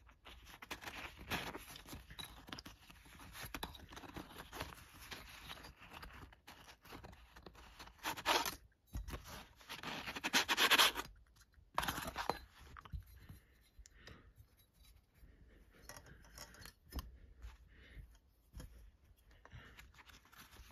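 Thin steel saw blades being slid out of a nylon sheath and set down on a blanket: irregular scraping and rustling, louder about eight and ten seconds in, with a few light clicks.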